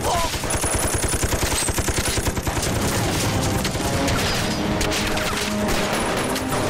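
Sustained battle gunfire: rapid, overlapping rifle and machine-gun shots in a continuous volley. Dramatic background music comes in under it about halfway through.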